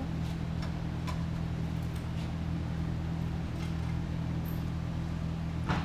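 Steady low machine hum, with faint scattered clicks and one sharper click near the end from wires and fish tape being handled.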